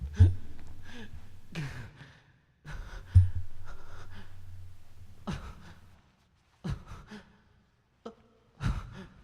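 Two heavy low booming hits about three seconds apart, each dying away slowly over a couple of seconds, with short gasps and sighing breaths between and after them.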